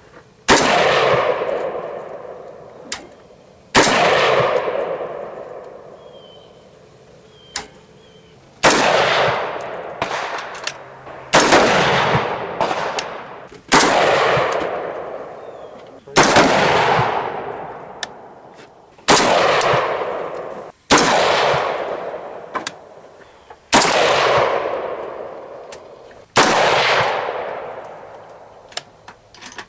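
A 5.56 semi-automatic rifle firing about ten single shots, a few seconds apart, each shot followed by a long rolling echo.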